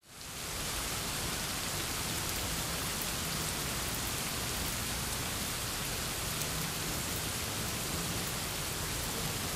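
Steady rain, fading in over the first half second and then holding even.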